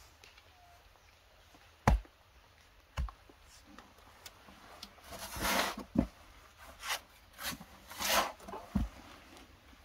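Hand digging: a few separate knocks of a digging tool striking earth, the loudest about two seconds in, with short scraping sounds of soil being worked in between, in the second half.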